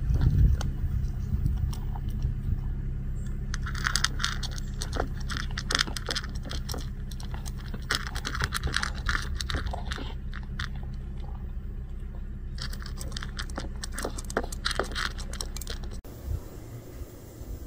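A cat eating from a ceramic bowl: quick bursts of chewing and clicking, over a steady low rumble that cuts off near the end.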